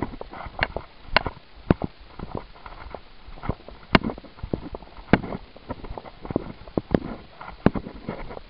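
Footsteps on dry dirt ground, sharp crunches at a walking pace, about two a second at first and then more spread out.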